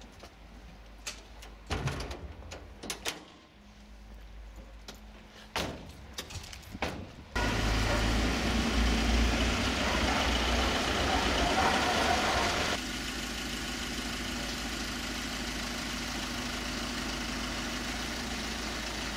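Scattered knocks and clicks, then, from about seven seconds in, a steady idling vehicle engine, louder at first and dropping to a lower level about five seconds later.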